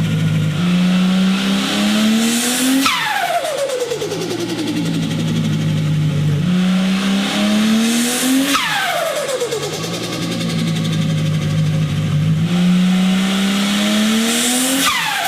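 Turbocharged car engine revved up three times. Each time the throttle shuts there is a short burst of hiss and turbo flutter, and the turbo's whistle falls away in pitch as it spools down.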